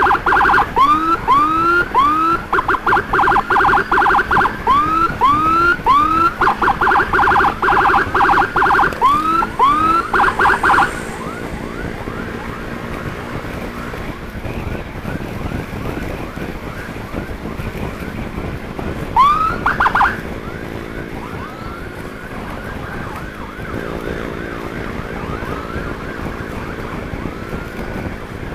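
Emergency vehicle siren switching between rising whoops and fast warbling yelps for about the first ten seconds. It then drops to fainter, repeated rising whoops, with one loud whoop about twenty seconds in.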